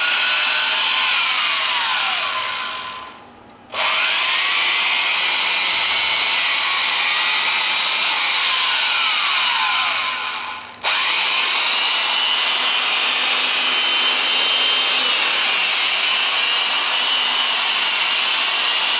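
Hitachi electric tapping drill running free with no load, a steady motor whine over hiss, while its speed dial is turned up toward the top setting. The motor winds down two to three seconds in and starts again sharply about a second later, then dips and restarts once more near ten seconds and runs steadily after that.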